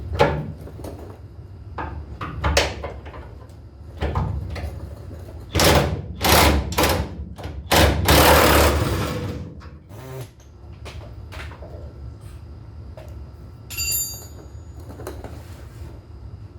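A run of loud knocks and clunks as metal parts are handled and struck. There are several hard hits close together about six to eight seconds in, then a longer scraping clatter, and a short metallic ring near the end.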